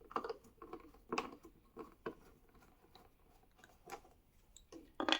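Security Torx screwdriver backing long screws out of a plastic booster-seat armrest: scattered small clicks and plastic creaks about once a second, with a sharper click near the end.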